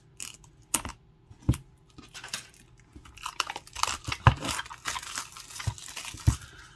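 Packaging of a small boxed card deck being unwrapped: a few sharp clicks and taps, then about three seconds of dense crinkling and tearing.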